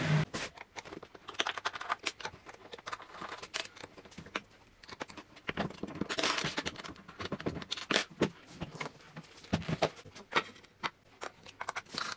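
A milling machine's run cuts off at the very start, followed by scattered, irregular light clicks and knocks of hand work with small metal parts: screws being turned into an aluminium router insert plate with an Allen key, and a plunge router being handled onto it.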